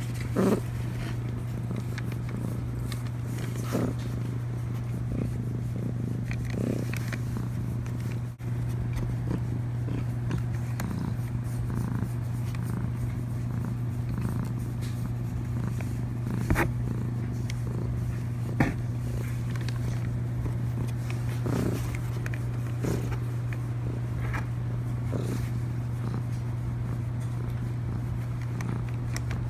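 Domestic cat purring steadily while being stroked on the head and chin, with a few short taps and scuffs, the sharpest a little past halfway.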